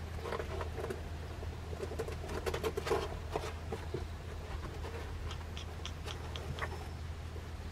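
Fifteen-day-old San'in Shiba puppies scrambling in the doghouse doorway, their claws scratching and pattering on the doghouse floor and the concrete step. The scratching is busiest in the first three seconds or so, with a few lighter clicks later.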